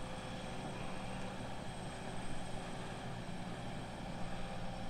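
New Holland skid steer's diesel engine running steadily, with no revving.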